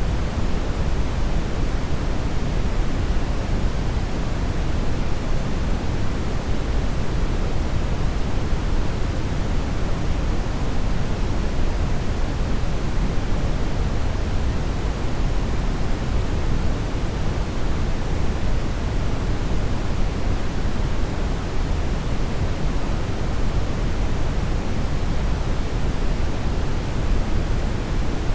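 Synthetic brown noise: a steady, unchanging rushing hiss with most of its weight in a deep low rumble and much less in the highs.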